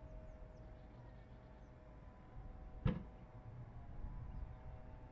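Low, steady rumble of the erupting Cumbre Vieja volcano heard from afar. About three seconds in there is one sharp bang, and there are a few faint high chirps.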